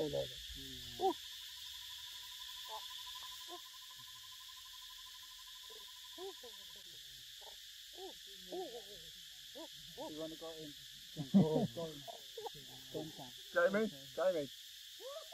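Baby macaque giving a run of short coos and squeaks, sparse at first, then quicker and louder in the second half, over a steady high drone of insects.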